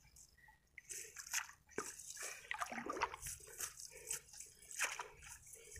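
Shallow water sloshing and splashing in irregular bursts, with small knocks, as caught fish are put into a keepnet in the water.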